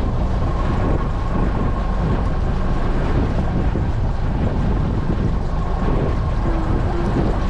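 A boat under way: wind buffeting the microphone over a steady engine hum and water rushing past the hull.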